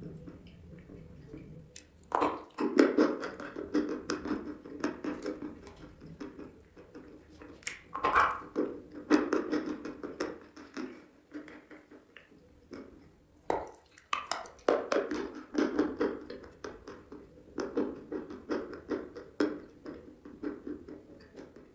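Close-miked chewing of dry chalk: runs of sharp crunching crackles, coming in bursts with a short pause about halfway.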